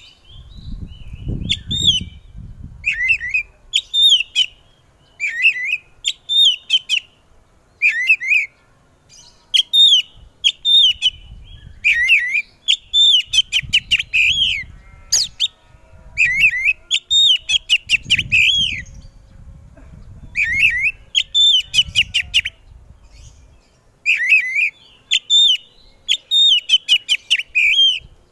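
Caged Oriental magpie-robin (kacer) singing loudly and continuously. It repeats short phrases of sharp, slurred whistles and chirps, each about a second long, with brief pauses between them. A low rumble sits underneath at times.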